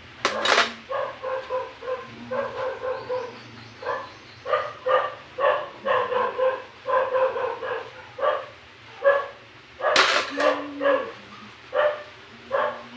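A dog barks over and over in quick short barks, about two a second. It is broken by a sharp clatter just after the start and another about ten seconds in.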